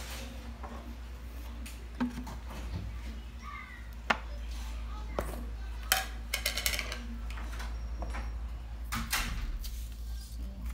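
Kitchen handling sounds: a few sharp clacks and a short rattling clatter as a plastic oil bottle, containers and a wire whisk are handled and set down on a granite countertop, over a steady low hum.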